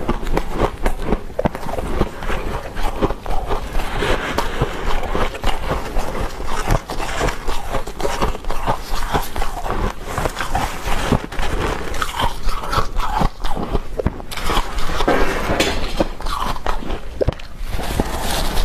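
Freezer frost being eaten: a metal spoon scraping and scooping through a mound of soft frost, and the frost crunching as it is bitten and chewed, a dense run of crackly crunches.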